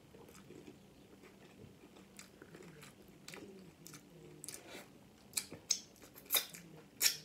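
Close-miked chewing of a taco. The chewing is soft for the first few seconds, then turns into a run of sharp crunches and mouth clicks in the second half.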